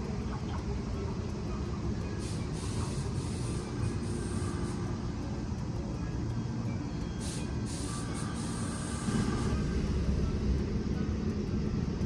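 Train running with a steady low rumble, with two short hisses of air and growing louder about nine seconds in.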